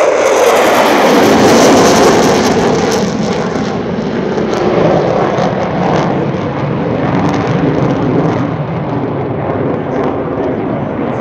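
Jet noise from EA-18G Growlers' twin F414 turbofans on a high-speed pass overhead. It is loudest about a second or two in, then fades slowly as the jets pull away and climb.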